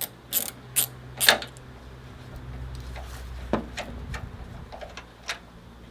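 Ratchet wrench with a T40 Torx bit clicking as it undoes a tailgate bolt: four sharp clicks in the first second and a half, then a few lighter, scattered clicks over a low steady hum.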